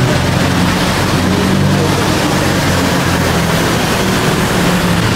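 Steady loud background din with a low, slightly wavering drone underneath.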